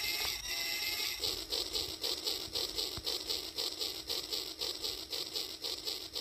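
Battery-powered Rail King toy train running on its track, giving a rhythmic chugging of about four beats a second over a steady hum, starting about a second in.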